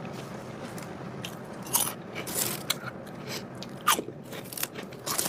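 Potato chips being eaten: a handful of sharp crunches and crackles, the loudest about two and four seconds in, over a steady low hum.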